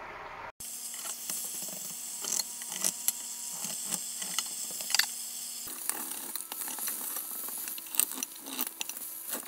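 Country ham sizzling in a cast iron skillet, a steady hiss with many sharp pops and crackles of spitting fat, and metal fork and spatula scraping the pan as the slices are turned.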